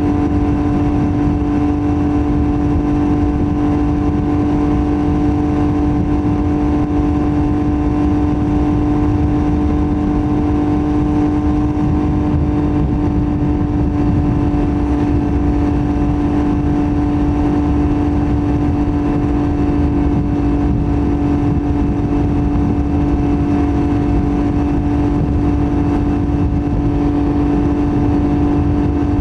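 Yamaha MT-09's inline three-cylinder CP3 engine through a Roadsitalia titanium full exhaust, running at a steady engine speed: one unchanging note over a low rumble, with no revving or gear changes.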